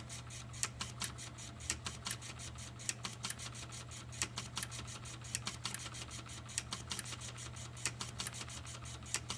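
Homemade solenoid engine running fast: a quick, even run of sharp clicks, several a second, from the solenoid and its contact points switching, over a steady low hum.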